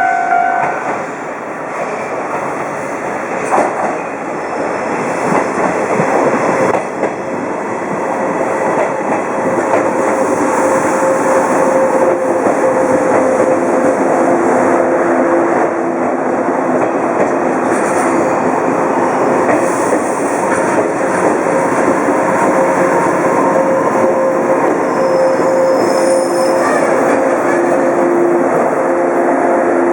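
Shinano Railway 169 series express electric multiple unit running on the rails: a steady rumble of wheels and cars, with a few knocks over rail joints in the first seconds and wheel squeal held as steady high tones through much of the passage.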